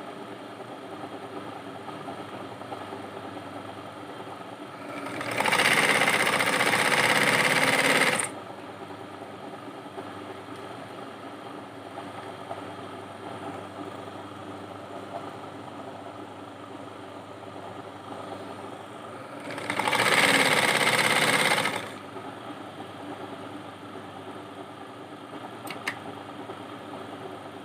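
Sewing machine stitching in two runs, the first about three seconds long and the second about two, as a zip is sewn into the fabric. A steady hum runs underneath, with a single click near the end.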